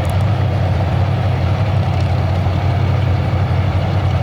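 Drag-racing car engine idling with a steady, heavy low rumble, held without revving.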